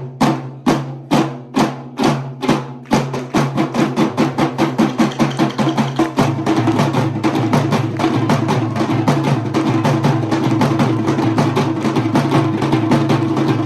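Sri Lankan drum ensemble playing traditional drums. Single strokes about twice a second speed up steadily, then break into a dense, rapid roll about six seconds in.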